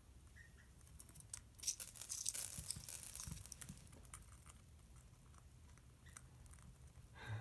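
Senegal parrot cracking seeds in its beak: a run of faint, crisp crunches and clicks, thickest in the first half and sparser afterwards.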